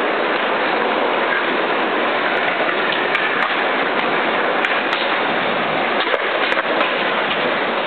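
Skateboard wheels rolling on a concrete floor: a loud, steady, gritty rolling noise with scattered sharp clicks from about two seconds in.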